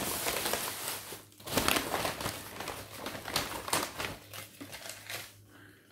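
Takeaway carrier bag being opened and rummaged through, crinkling and rustling, with a brief pause about a second in and the rustling fading away near the end.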